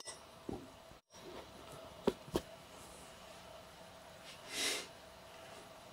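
Faint steady whine of a 3D printer's extruder stepper motor (an old Printrbot extruder) pushing nylon filament through the hotend at a constant rate. Two sharp clicks come a little after two seconds in, and a short hiss near the end.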